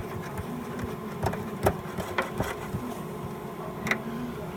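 Scattered sharp clicks and knocks of hand tools and small screws being worked on a fire alarm panel, five or so, the loudest about one and a half seconds in, over a steady hum.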